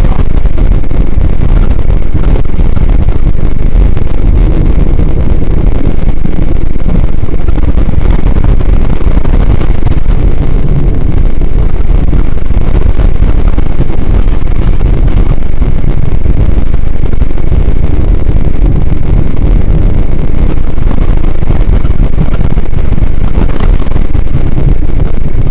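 Chevy Suburban 4x4 driving, a loud steady rumble of engine and road noise that stays near full level and sounds distorted.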